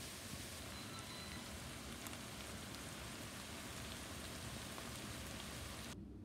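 Sliced onions and mushrooms frying in butter in a pan: a steady, rain-like sizzling hiss with faint scattered crackles, which cuts off abruptly about six seconds in.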